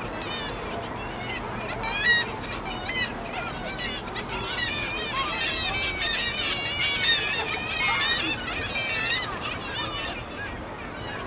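Many gulls calling at once, their short, wavering cries overlapping and thickest in the middle of the stretch, over a steady background rush.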